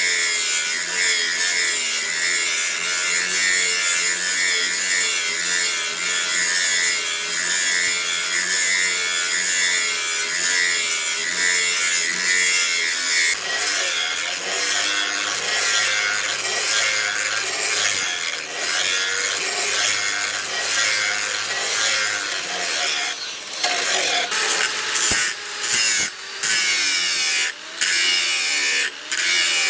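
Electric grinder working steel, its motor note wavering as the tool is pressed into the work. In the last several seconds it is repeatedly lifted off and pressed back on, so the grinding sound cuts in and out.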